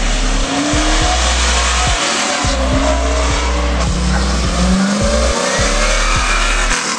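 Electronic background music with a heavy, evenly spaced bass beat, over cars driving past with their engines revving up, the pitch rising several times as they accelerate.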